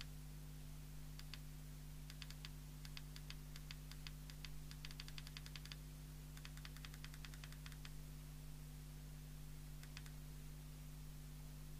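Faint, rapid clicking of the push-buttons on a Jopix GS-60 CB radio's front panel, pressed in quick runs of several clicks a second with pauses between, as the transmit frequency is trimmed in the service menu. A steady low hum runs underneath.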